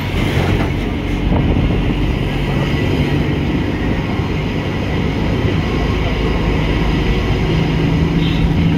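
Bus engine running and road noise heard from inside the moving bus, with a truck passing close alongside at the start. The engine hum grows stronger near the end.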